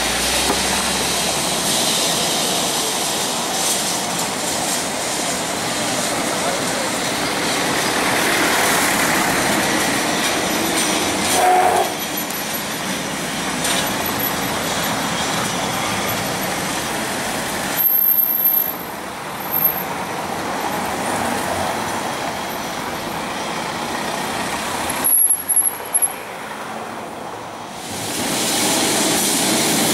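Carris historic tram number 555 running on its street rails among passing cars, with a few brief high-pitched squeals from its wheels on the rails in the second half.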